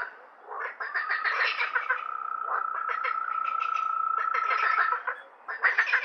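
A chorus of frogs calling in rapid rattling pulses that come in bouts, with short pauses near the start and near the end. A steady high note is held through the middle.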